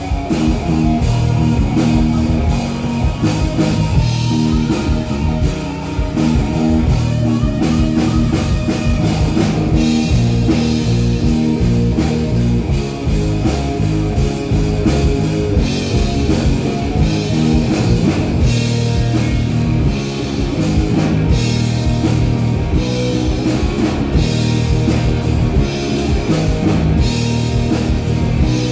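Live rock band playing a blues-rock song through a PA: electric guitars and a drum kit, loud and steady.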